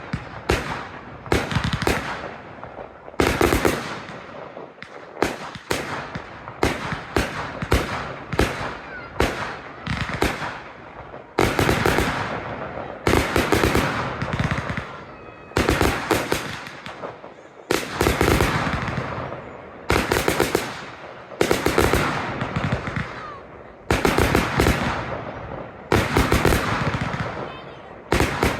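Aerial firework shells bursting one after another in a steady barrage of sharp bangs. About halfway through the bursts turn heavier, coming as clusters of several bangs every second or two, each trailing off into a crackle.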